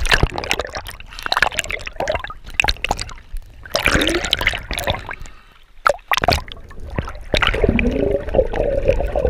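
Water splashing and gurgling close to the microphone, with many short sharp splashes. About three quarters of the way through it turns into a steadier muffled underwater rumble with a faint wavering tone.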